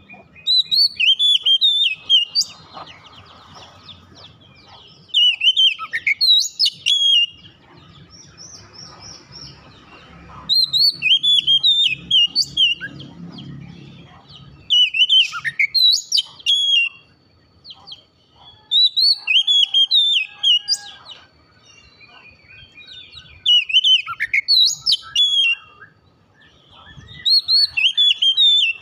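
Oriental magpie-robin singing: seven short, loud phrases of clear whistles and quick downward-sweeping notes, one about every four seconds.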